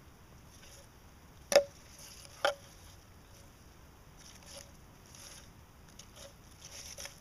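Metal detector coil swept low over leaf litter and soil, giving soft repeated rustling swishes and faint short detector blips, with two sharp clicks about one and a half and two and a half seconds in.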